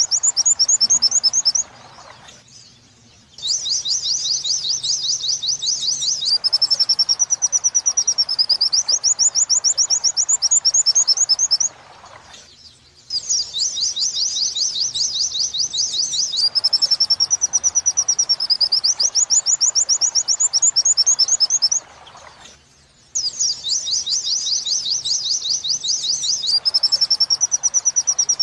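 Recorded song of a white-eye (pleci), played on a loop as masteran material: rapid high chattering 'wit-wit' notes run into wavering rising-and-falling phrases. Bouts last about eight seconds, with short pauses between, and the same phrase comes round about every ten seconds.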